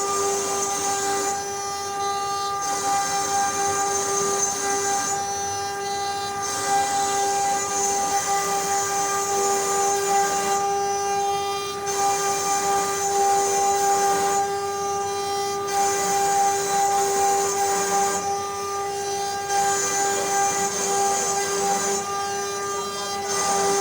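CNC wood router running, its spindle giving a steady high-pitched whine throughout, with a high hiss that cuts in and out every few seconds in a repeating cycle.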